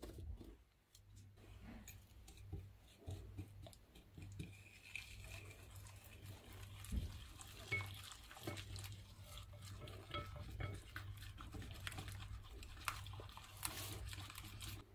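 Whisk beating egg yolks and erythritol in a glass bowl: faint, quick, irregular clicking and scraping of the whisk against the glass.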